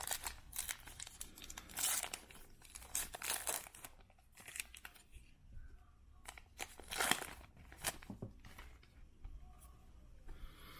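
A trading-card pack's foil wrapper being torn open and crinkled, in a series of short tearing and rustling bursts.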